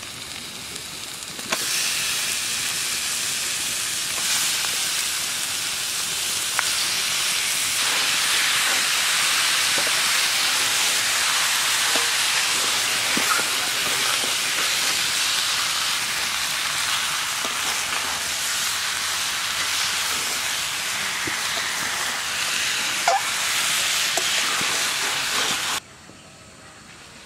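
Raw duck meat sizzling steadily as it fries in hot oil and spice paste in a metal karai, with a few faint scrapes of a metal spatula as it is stirred. The meat is being fried in the masala without water (the kosha stage). The sizzle starts about a second and a half in and cuts off near the end.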